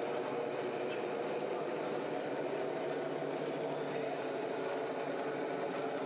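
Radio-controlled scale model trucks running steadily, a continuous small-motor hum with several steady tones.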